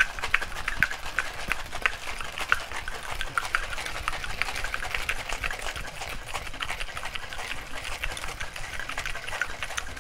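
Ice cubes rattling inside a metal cocktail shaker shaken hard, a fast, continuous clatter of ice against the steel tin as the drink is chilled.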